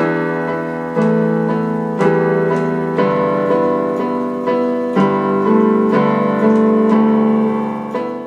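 Intro music on an electric piano: sustained keyboard chords, a new chord struck about every second, fading near the end.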